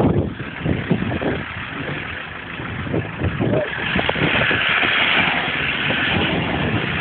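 Off-road vehicle engine running, growing louder about halfway through.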